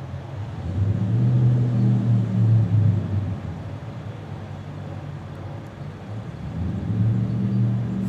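Low engine rumble with a pitched hum, swelling about a second in, easing off in the middle and swelling again near the end.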